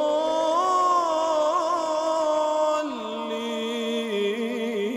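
A male reciter chanting the Quran in melodic tajweed style. He draws out a long held line with wavering ornamental turns, and it steps down in pitch about three seconds in.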